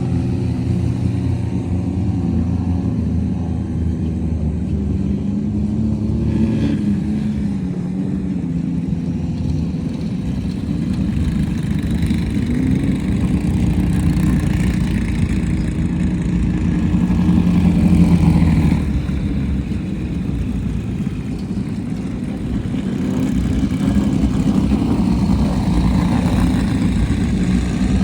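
Off-road race vehicle engines running and revving, the pitch rising and falling. One climbs to a peak about 18 seconds in and then drops off sharply.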